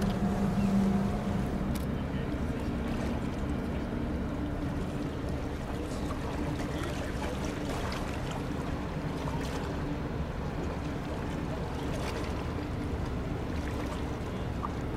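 Steady low hum of a large ship's machinery across the harbour water, with a wash of wind and water noise and a few faint ticks.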